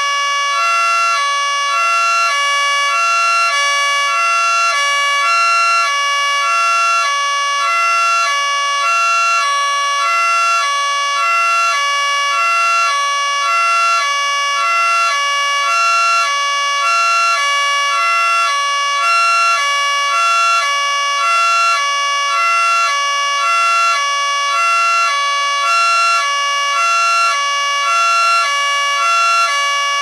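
Miniature 3T22B two-tier electric siren running at full speed in hi-lo mode. Two chord-like tones alternate steadily, each held for about half a second.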